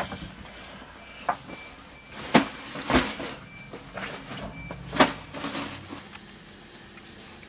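Clothes and belongings being handled and gathered up for packing: rustling, with several sharp knocks like cupboard doors or drawers about a second, two and a half, three and five seconds in.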